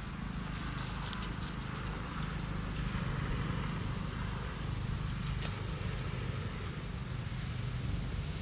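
Steady outdoor background noise with a low rumble, and a few faint ticks about halfway through.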